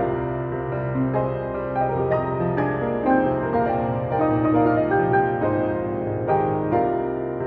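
Piano background music.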